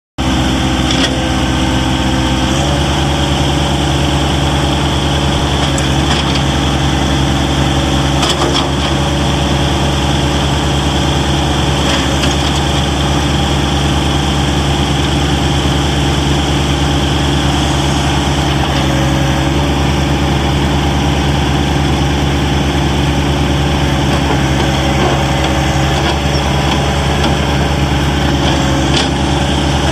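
2017 John Deere 1023E compact tractor's three-cylinder diesel engine running steadily as the tractor drives and works its front loader, the engine note shifting slightly about two and a half seconds in.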